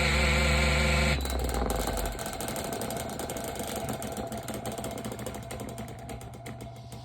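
Electric fan running with its blade mounted backwards and no spinner nut, giving a loud pitched buzz. About a second in the buzz cuts off sharply, and a fast ticking rattle follows that slowly fades. The owner takes the noise for the blades rubbing on the shaft.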